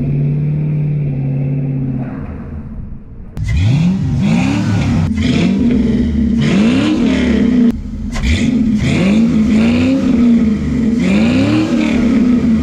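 A square-body C10 pickup's 5.3 LS V8 through a 3-inch dual exhaust with headers, X-pipe, resonator and Flowmaster Super 10 mufflers. It idles steadily at first, then is revved in a string of quick blips, the exhaust note rising and falling with each.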